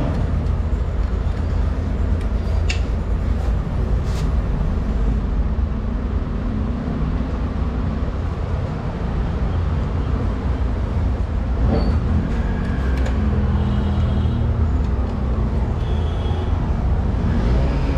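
Steady low rumble like background road traffic, with a few sharp clicks in the first few seconds.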